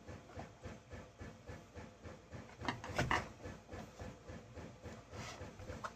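Hands working at a chainsaw's housing to pull it apart: irregular small clicks, rubs and rattles of plastic and metal parts, with a few louder knocks about three seconds in.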